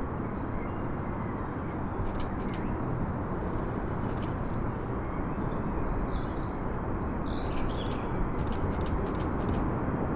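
Boeing 767 jet engines at takeoff thrust: a steady distant rumble that grows slightly louder near the end as the aircraft lifts off. Birds chirp about six seconds in, and there are a few faint clicks.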